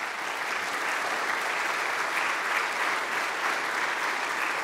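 Live audience applauding, a dense, steady clapping, louder than the speech around it.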